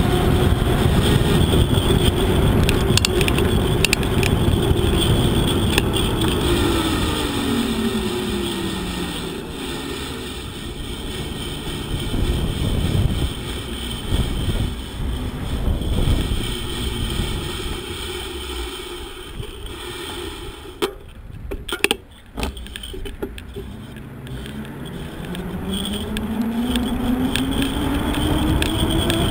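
Onboard sound of a vehicle on the road: the engine note falls as it slows, then rises again as it speeds up, with steady wind and road rush over the microphone. A few sharp knocks come about two-thirds of the way through.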